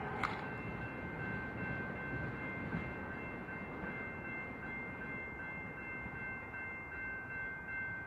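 A train going by at close range: a steady rumble of rail noise with a few thin, steady high tones over it, and a single sharp click just after the start.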